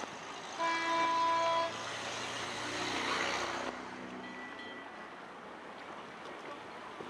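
A boat's horn sounds one steady blast lasting about a second. A rushing noise then swells and cuts off suddenly about three and a half seconds in.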